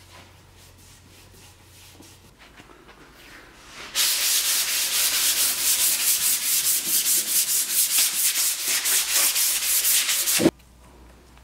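Paintbrush scrubbing emulsion paint onto the side of a birch-plywood drawer in rapid back-and-forth strokes. It starts about four seconds in and stops abruptly with a single knock near the end.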